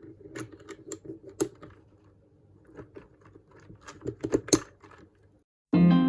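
Typing on a Royal Kludge RK61 mechanical keyboard fitted with Gateron yellow linear switches: irregular key clacks, with a run of louder strokes about four seconds in. Music starts loudly just before the end.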